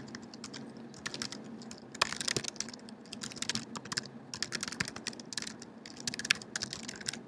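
Typing on a computer keyboard: rapid key clicks in bursts with short pauses, as a commit message is typed.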